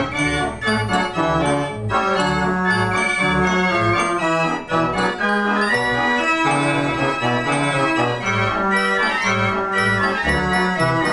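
Page & Howard fairground organ playing a tune: pipes sounding a melody and chords over a bass line that steps from note to note, with regular percussion hits.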